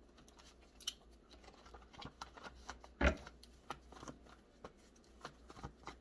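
Tarot cards being shuffled and handled: a run of light clicks and slaps, with a louder slap about three seconds in.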